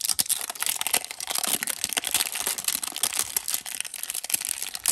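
Plastic shrink-wrap crinkling and tearing in quick, dense crackles as it is pulled off a small plastic toy capsule by hand.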